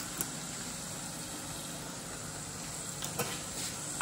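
Food sizzling steadily in a pan on the stove, with two light clicks, one just after the start and one near the end.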